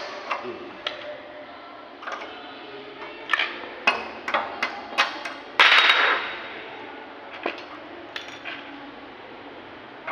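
Hammer tapping a screwdriver against a glass door's floor lock cylinder in its aluminium bottom rail: irregular sharp metal taps, with one louder, longer noise about six seconds in. The lock is being knocked out because it is broken and has gone stiff.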